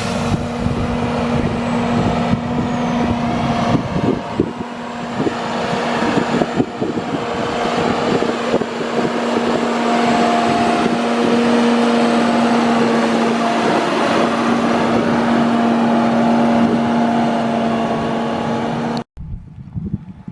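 A machine running steadily: a constant hum over a loud rushing noise, stopping abruptly near the end.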